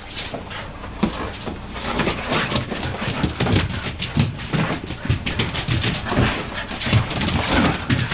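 Siberian huskies play-fighting: dogs vocalizing in short calls amid scuffling, growing busier about two seconds in.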